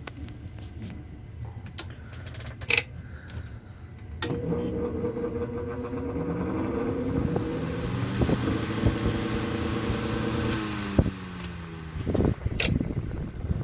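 Antique brass-bladed table fan, circa 1912: a few switch clicks, then about four seconds in its delayed start switch engages and the motor hums up to speed, blades rushing. Near the end there is a click and the hum falls away as the fan slows, followed by a few handling knocks. The blade is a little off balance.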